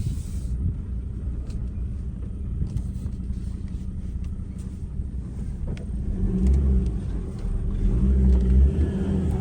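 A car driving, with steady low engine and road noise; the engine note gets louder and stronger about six seconds in.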